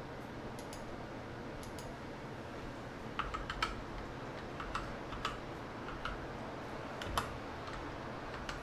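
Computer keyboard typing: scattered short keystrokes in a few quick runs between about three and seven seconds in, over a faint steady room hum.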